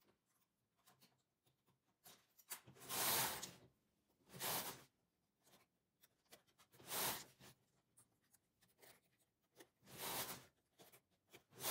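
Hands handling knitted fabric on a knitting machine's needle bed, making short rustling, brushing sounds about five times with quiet between.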